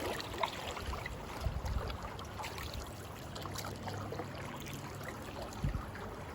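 River water running and splashing around a canoe going through a shallow riffle, with scattered small splashes and knocks of paddles and hull, over a low rumble.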